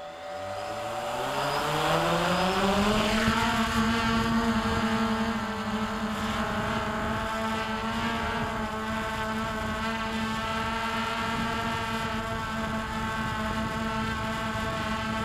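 Hubsan H109s X4 Pro quadcopter's motors and propellers spinning up for takeoff, the whine rising in pitch over the first three seconds or so. It then holds a steady pitch as the drone lifts off and hovers.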